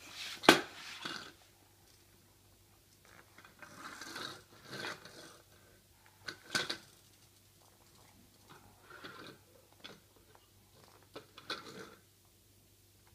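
Small plastic toy car handled by a baby on a wooden floor: scattered light knocks and rustles with quiet gaps between them, the sharpest knocks about half a second in and again around six and a half seconds.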